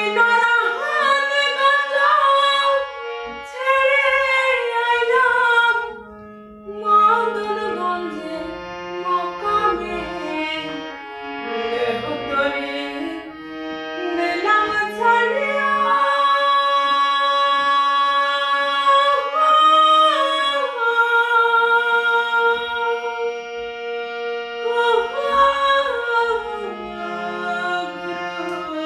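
A woman singing a Bengali devotional song in long, drawn-out melodic phrases with gliding ornaments, over instrumental accompaniment.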